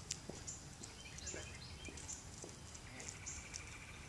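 Birds chirping, with a held high note near the end and a few faint footsteps on concrete as a man and dog walk.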